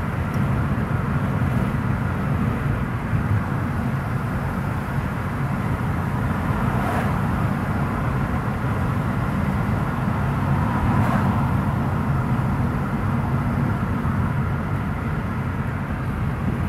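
Steady road and engine noise of a moving car heard from inside the cabin: an even low rumble that holds the same level throughout.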